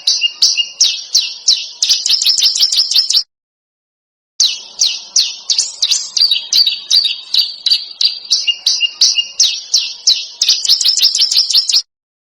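Songbird song from a bird-training recording: a rapid series of sharp, downward-slurred chirps, about four to five a second, quickening into a faster run before cutting off abruptly about three seconds in. After about a second of silence the same pattern starts again and cuts off abruptly near the end.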